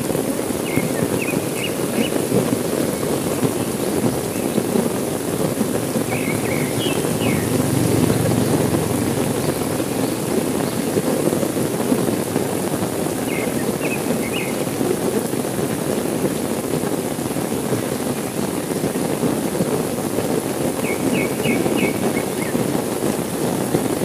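Steady heavy rain pouring down. Over it a bird gives a short run of quick high chirps four times, and a low rumble swells briefly about eight seconds in.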